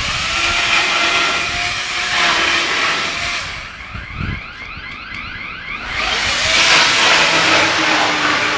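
A handheld power saw runs and cuts into the thick fibrous insulation lagging around a large pipe. The noise is loud and continuous, easing for about two seconds in the middle while a rapid rising sweep repeats about four times a second, then comes back up to full level.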